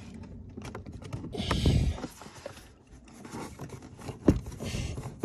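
Hands fumbling with a plastic multi-pin wiring connector for the electric windows and mirrors inside a Mk7 Ford Fiesta door, with plastic scraping and rubbing. One sharp click about four seconds in.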